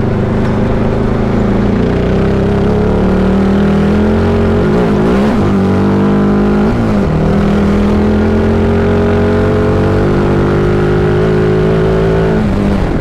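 Sierra Echo electric race car driving on desert dirt: a steady, loud pitched drivetrain hum over tyre and wind noise. Its pitch wavers up and down in the middle and drops away near the end.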